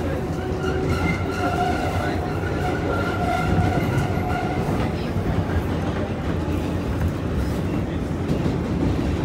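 New York City 7 subway train running along its elevated track, heard from inside the car: a steady rumble, with a faint pitched whine for the first few seconds.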